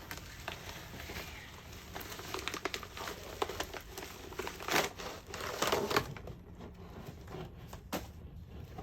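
A package being opened by hand: crinkling and rustling of wrapping with scattered small clicks, and two louder rustles about five and six seconds in.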